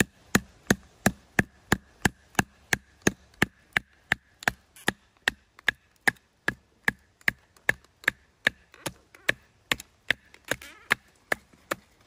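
Batoning firewood: a stick of firewood striking the spine of a knife set into a split of wood, sharp wooden knocks about three a second as the blade is driven down the grain to split it.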